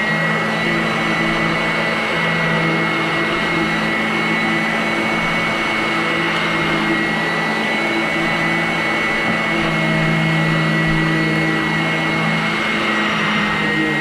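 Vacuum cleaner running steadily: a constant rush of air with a high motor whine and a lower hum that wavers in and out.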